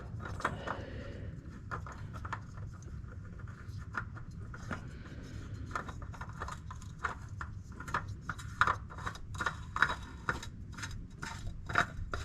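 New spin-on oil filter being threaded onto the engine's filter mount by hand: a run of light, irregular clicks and taps as it turns.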